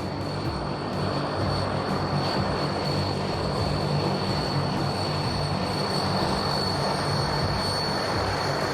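Military aircraft engines running steadily, a dense roar with a low hum and a thin high-pitched whine.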